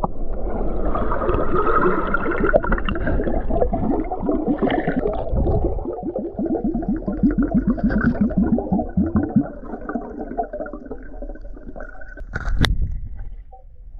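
Muffled underwater sound of creek water gurgling and sloshing around a submerged camera. For a few seconds in the middle comes a run of quick, even pulses, about eight a second, and a single sharp knock near the end.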